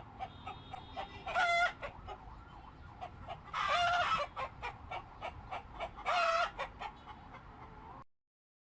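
Chickens clucking, with three loud, short pitched calls standing out over the clucks. The sound cuts off abruptly near the end.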